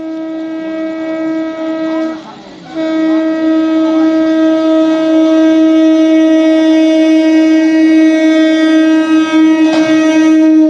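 ALCo diesel locomotive's air horn sounding loud, steady blasts: one held blast broken off a little after two seconds in, then a long blast of about eight seconds.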